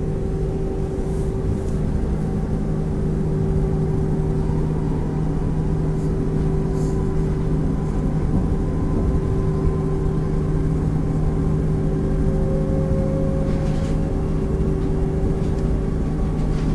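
ASEA-built X10 commuter electric multiple unit running along the line, heard on board: a steady rumble of wheels on rail under a constant electric hum, with a faint higher tone joining about three-quarters of the way through.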